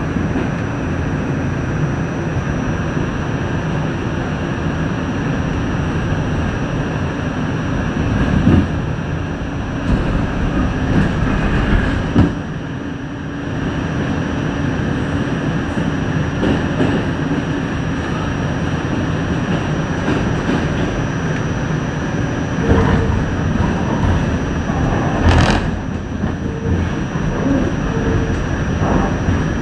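Pullman-Standard R46 subway train running through a tunnel: a steady rumble of wheels on the rails, with a few sharp knocks over rail joints.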